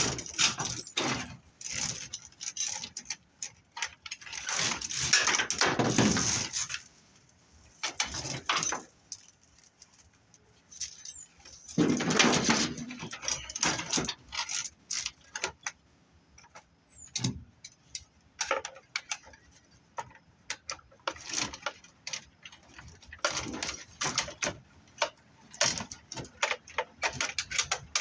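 Metal BX armored cable being handled and stripped: irregular clinking and rattling of the coiled metal armor, with two longer scraping rasps as wire is pulled through or the armor is dragged, about five seconds in and again about twelve seconds in.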